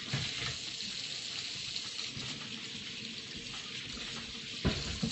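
Kitchen faucet running steadily while hands are washed under it, with a thump near the end.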